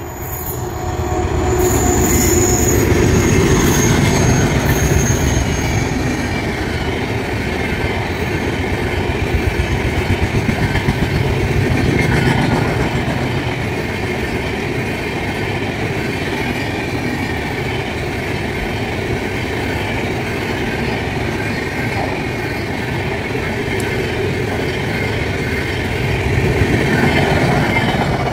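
Express train of LHB coaches hauled by an electric locomotive passing close at speed: a loud steady rumble of wheels on rail with rhythmic clickety-clack. A thin high-pitched whine shows for a few seconds near the start.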